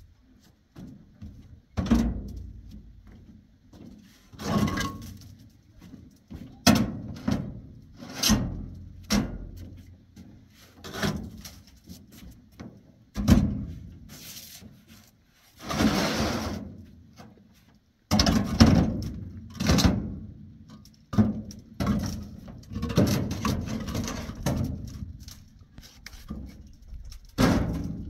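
Building blocks being handled and set down, knocking against one another: a series of irregular thuds and clacks, one every second or two, with a longer grating sound around the middle.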